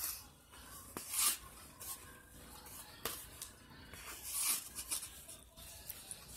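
Close-up eating sounds: mouth noises of chewing and smacking on stuffed pasta shells and corn, with a few sharp clicks and scrapes of plastic cutlery on a plate. Two louder hissy smacks stand out, about a second in and about four and a half seconds in.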